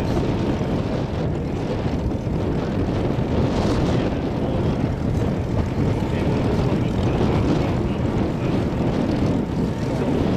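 Propeller aircraft's radial piston engine running steadily at close range, a dense, continuous low rumble.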